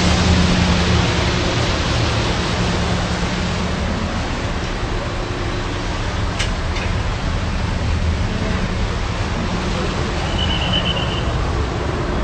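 A vehicle engine running steadily with a constant low hum under a loud rushing noise. A single short click comes about six and a half seconds in, and a brief high chirp about ten and a half seconds in.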